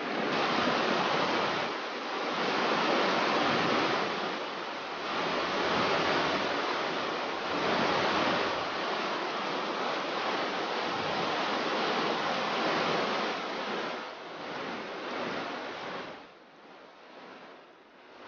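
Rushing river water over rapids mixed with wind noise, swelling and easing every couple of seconds, then dropping quieter about sixteen seconds in.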